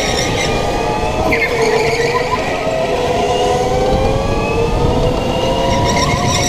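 Indoor racing go-kart running at speed, heard from the driver's seat: its motor gives a steady pitched drone that dips and rises as it goes through the corners, over rumbling tyre and track noise.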